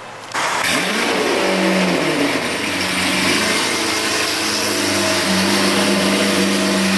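A Lamborghini Aventador's V12 engine starts about half a second in, its revs climbing briefly before it settles into a steady idle.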